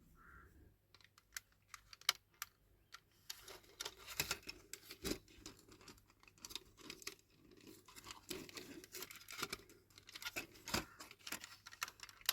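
Small plastic and metal parts of a 1/18 scale diecast model car clicking, tapping and scraping as it is taken apart by hand. Irregular faint clicks and rustles, with a couple of sharper clicks about five seconds in and near the end.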